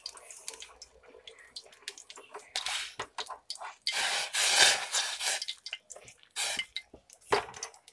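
Milk tea boiling in a steel saucepan, bubbling in irregular bursts. The longest and loudest burst, about a second long, comes about four seconds in.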